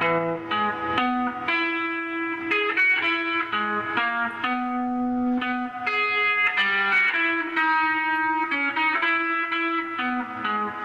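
Electric guitar playing a lead melody of single notes, one at a time, some held for a second or more.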